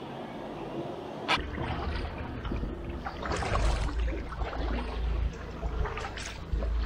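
Kayak paddle strokes splashing in the water, several times, with wind buffeting the microphone as a low rumble from about a second in.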